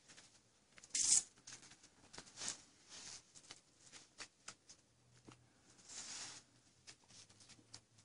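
Leather work gloves rustling and scraping while a ring-necked parakeet is caught and held, with scattered clicks and several short hissy bursts, the loudest about a second in and a longer one around six seconds in.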